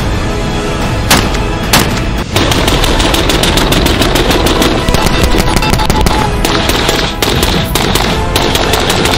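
SIG MCX Spear (XM5) rifle in .277 Fury firing: two single shots, then from about two seconds in long strings of rapid fire with brief breaks. Background music plays underneath.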